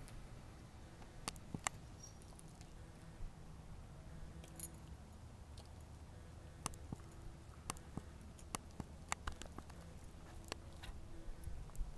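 Faint scattered clicks and rustles of a puppy chewing and shifting about in bark mulch, a dozen or so short ticks spread unevenly, over a low steady background rumble.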